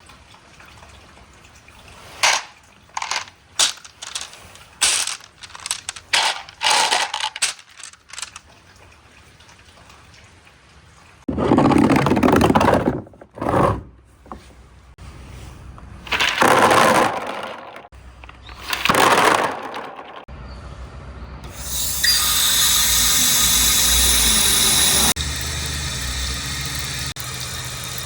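Glass marbles clacking and rolling along a marble-run track: a string of short sharp clacks, then several loud rolling rushes a second or two long. About three quarters of the way through, a steady rush of flowing water sets in and keeps going.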